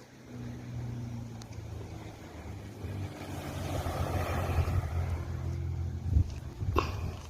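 An engine running steadily, with wind buffeting the microphone and growing stronger toward the end.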